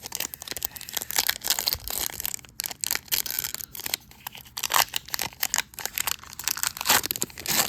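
Foil wrapper of a Pokémon trading-card booster pack being crinkled and torn open: a dense, continuous crackling and tearing.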